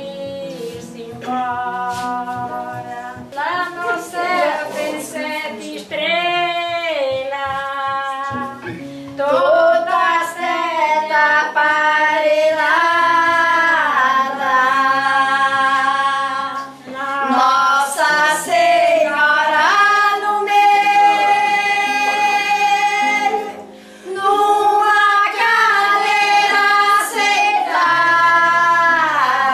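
A small group of women singing a song together, their voices joined in long sung phrases, with brief breaks between lines.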